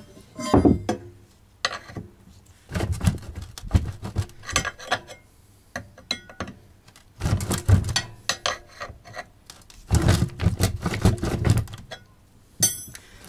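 Irregular metallic clunks, knocks and rattles as a pressure washer's pump and gearbox are rocked back and forth by hand to work them off the engine's shaft, which is stuck tight with rust on its spline and keyway. The knocks come in spells of a second or two with short pauses between.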